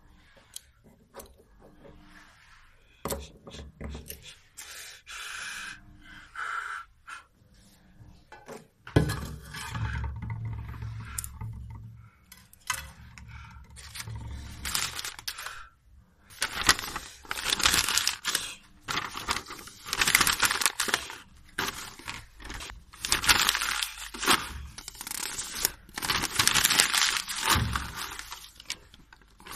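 Small clicks and scrapes with a few knocks at first, then, from about halfway, long loud crumpling and crinkling of paper as sheets are pressed into a metal pot.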